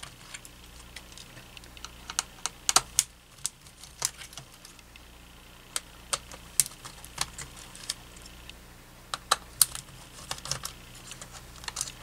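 Screwdriver backing screws out of a cordless phone base's circuit board and plastic housing: irregular sharp clicks and ticks of metal on screw heads and plastic, coming in small clusters.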